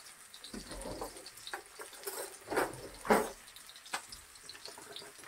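Onions frying in coconut oil in a stainless steel pan: the oil sizzles and crackles with small pops, a sign that the oil is hot and cooking. A few louder knocks come about two to three seconds in.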